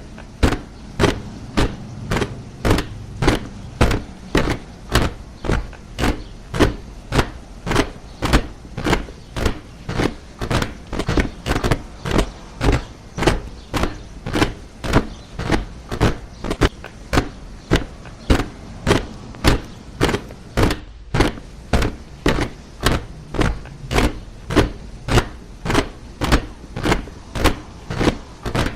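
A troop of soldiers marching in step, their footfalls landing together in a steady cadence of about two steps a second.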